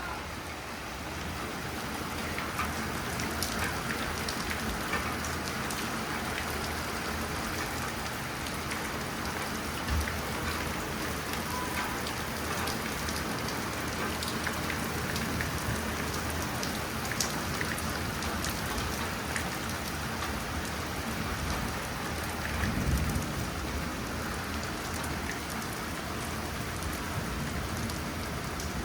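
Hail falling steadily, a dense patter of many sharp ticks of hailstones striking surfaces. A single dull knock comes about ten seconds in, and a brief low rumble about two-thirds of the way through.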